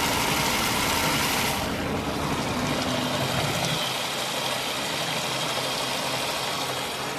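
Water jets driving a 3D-printed Pelton turbine with its generator under electrical load: a steady rushing hiss of spray with a low machine hum underneath. The high part of the hiss drops back about a second and a half in.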